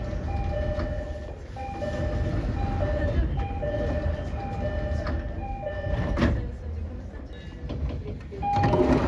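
Train door chimes of JR East E231 and 209 series cars: a two-note high-then-low electronic chime repeated over and over, several chimes overlapping out of step so that they clash. A sharp thud comes about six seconds in, and a louder rush of noise starts near the end under further chimes.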